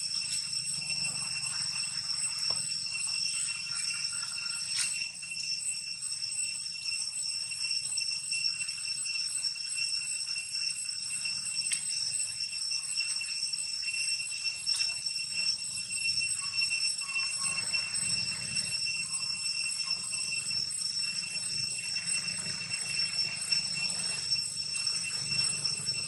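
Steady high-pitched buzzing drone of insects, unbroken and even in level, with a few faint short high calls over it.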